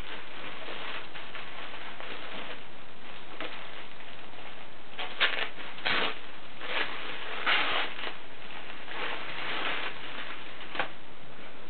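A clear plastic polybag rustling and crinkling as a garment is taken out of it, in several short bursts with a few sharp crackles in the middle.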